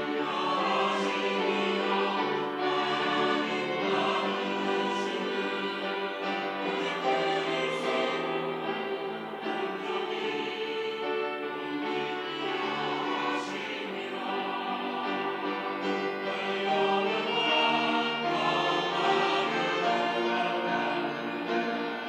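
Mixed church choir of men's and women's voices singing a sacred anthem together in sustained, continuous harmony.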